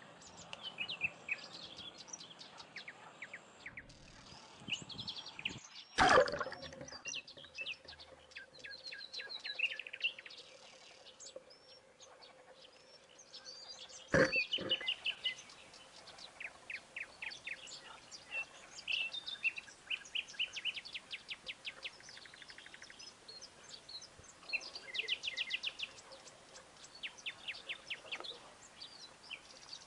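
Songbirds chirping and trilling, with many quick repeated notes. Two sharp knocks break in, the first about six seconds in and the second about eight seconds later, the first followed by a faint steady hum for several seconds.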